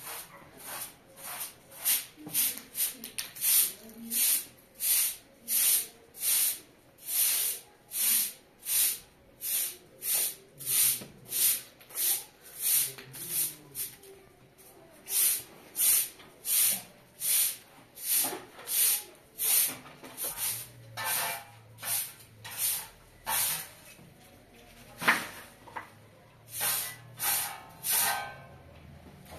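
Short-handled straw broom sweeping a concrete floor and carpet, an even run of swishes about one and a half strokes a second, with a brief pause about halfway through.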